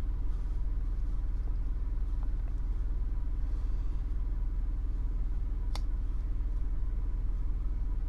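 Steady low hum, with one faint click about six seconds in.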